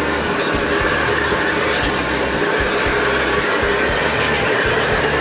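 Commercial high-pressure gas wok burner running at full flame under a wok: a loud, steady rushing noise.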